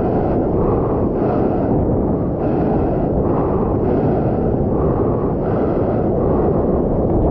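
Loud rush of water and wind against a surfboard and the camera's microphone as the board moves through the wave and its whitewater, with splashy surges every second or so.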